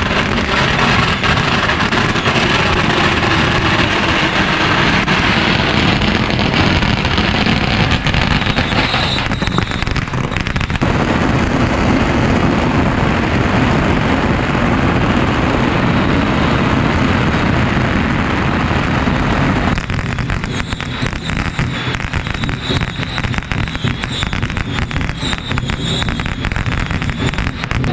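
Long strings of firecrackers going off in a continuous dense crackle; about twenty seconds in, the bangs turn sharper and more separate.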